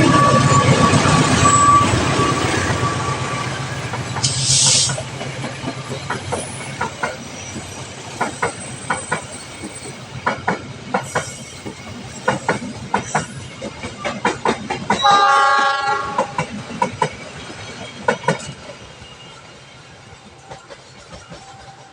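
A train passing close by. A loud low rumble at first fades as the carriages go by, their wheels clicking over the rail joints in a quick clickety-clack rhythm. A short steady horn blast sounds about fifteen seconds in, and the clicking thins out and fades near the end.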